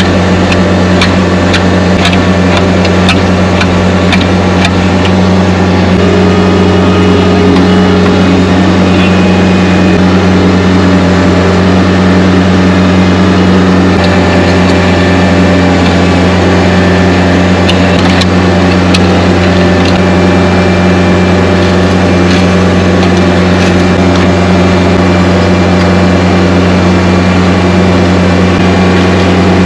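Backhoe's diesel engine running steadily at a constant speed, close by and loud, with a run of light clicks or ticks over the first few seconds.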